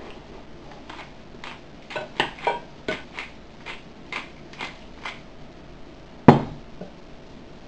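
A glass shaker with a metal top shaken over a dinner plate, a run of short rattles about twice a second. A little past six seconds in it is set down on the wooden table with a single loud knock.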